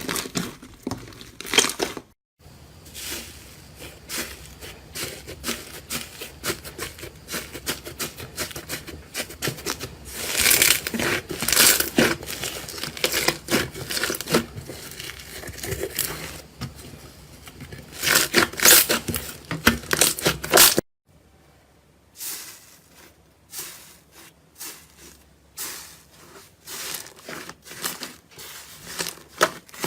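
Close-up crackling, tearing handling sounds of slime being squeezed and pulled apart, made of many short clicks. The sound changes abruptly about 2 seconds in and again about 21 seconds in, where one clip gives way to the next.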